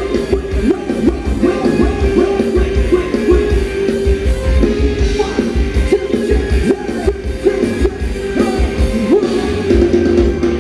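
Loud live Thai ramwong dance-band music with a steady pulsing bass beat and a singer's voice over it.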